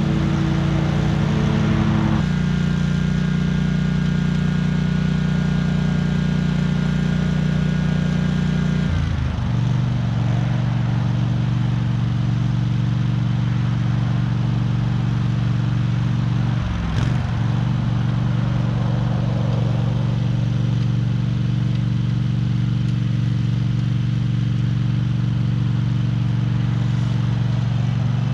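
Small gasoline engine of lawn-mowing equipment running steadily under load. Its pitch shifts about two seconds in, drops lower around nine seconds, and sags briefly near the middle before recovering.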